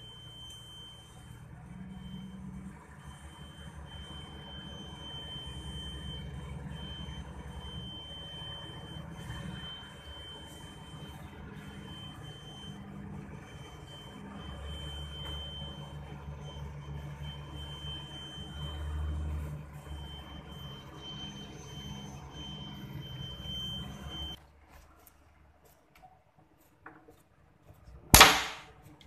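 Low, steady machinery rumble aboard a ship, with a thin, steady high-pitched tone over it. Both cut off abruptly about 24 seconds in and the sound drops to near quiet, then a single loud, sharp knock comes near the end.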